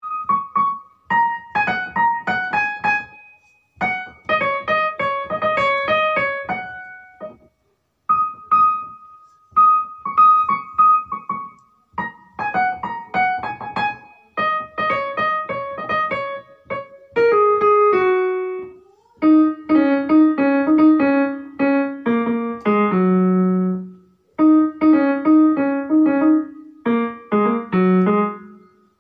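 Piano music playing a light melody of short notes in phrases, with brief pauses between them.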